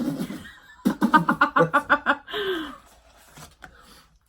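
A person laughing: a quick run of rhythmic ha-ha pulses about a second in, ending in a falling, sighing tone.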